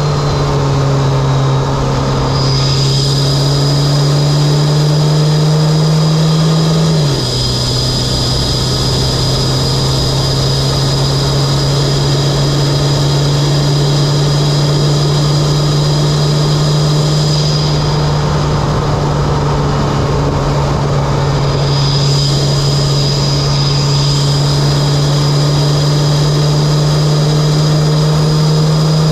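Mitsubishi Lancer Evolution X's turbocharged four-cylinder, fitted with an aftermarket intake and HKS single-exit exhaust, droning steadily under way. Its pitch drops once about seven seconds in and then holds. A thin high whine comes and goes above it.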